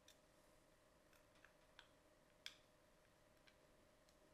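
Near silence with a few faint, scattered clicks of a small screwdriver working the base screws of a FLIRC aluminium case, the sharpest about two and a half seconds in.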